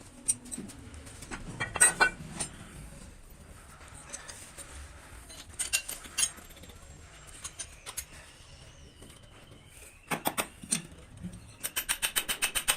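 Metal hand tools and parts clinking and knocking in irregular taps, with a quick run of even clicks near the end.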